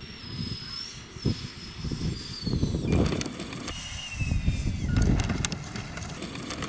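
An RC jet's electric ducted fan whining, the thin high whine sliding down in pitch twice as the throttle is pulled back for landing. Under it runs a loud, uneven low rumble that peaks about three and five seconds in.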